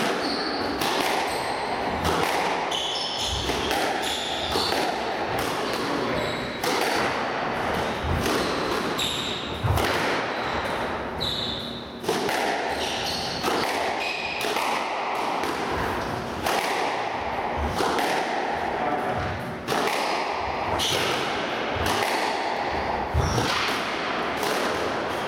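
Squash rally: the ball is struck by rackets and smacks off the court walls in a run of sharp, irregular impacts, with short squeaks of shoes on the wooden court floor in between.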